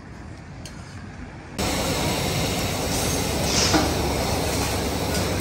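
Steady roar of a row of high gas burners under woks, with the food in them hissing and a metal clink from the cooking. It starts abruptly about a second and a half in, after quiet street background.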